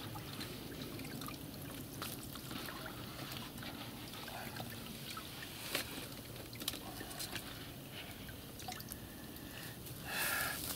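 Faint drips, trickles and small splashes of water as small live bait fish are handled in a water-filled bait cooler, with scattered light clicks and a brief louder swish near the end.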